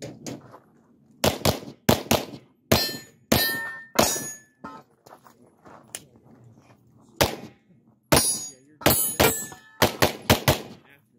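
A Glock 17 9mm pistol fires rapid strings of shots, mostly in quick pairs, with a pause of a couple of seconds about halfway through. Steel targets ring after some of the hits.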